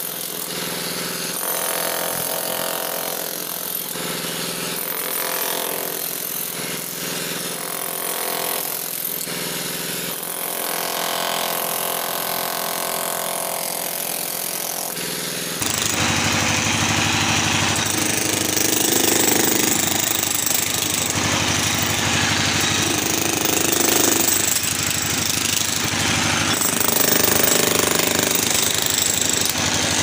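DeWalt electric demolition hammer chiselling into a concrete floor, hammering continuously. About halfway through, the sound jumps louder and fuller.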